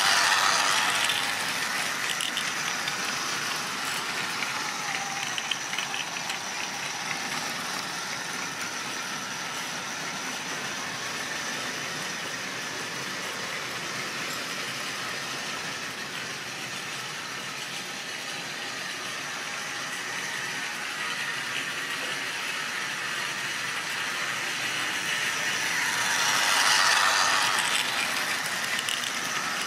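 Model railway locomotive running past hauling a long rake of goods wagons: a steady motor hum and the rattle of small wagon wheels on the track. It is loudest as the locomotive passes close by near the start and again near the end.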